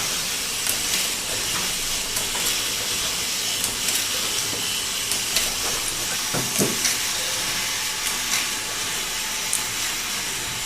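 Bottle filling machine for cough syrup running: a steady hiss with irregular sharp clicks, about one or two a second, and a short low thump about six and a half seconds in.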